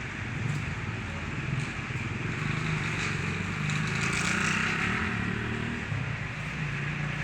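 A motor running steadily with a low hum, and a rushing noise that swells and fades about four seconds in.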